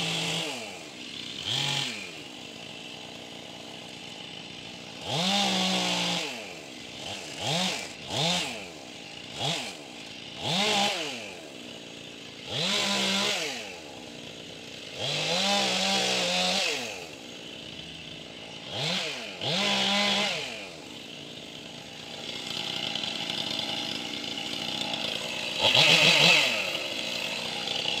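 Petrol chainsaw idling and being revved in about a dozen short bursts, each rising in pitch and dropping back to idle. Near the end it runs steadier at a higher speed, with one loudest rev.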